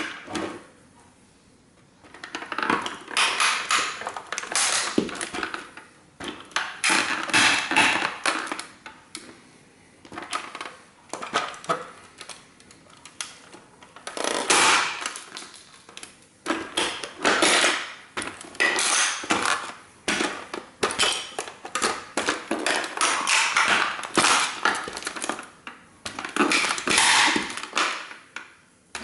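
A 1:18 scale model toy car crunching and cracking as it is stomped and trampled under sneakers, in bursts of dense crackling a few seconds long with short pauses between.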